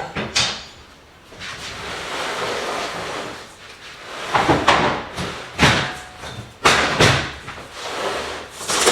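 Utility knife scoring a sheet of quarter-inch cement backer board: a long, steady scraping stroke, then several short sharp knocks and scrapes as the board is handled.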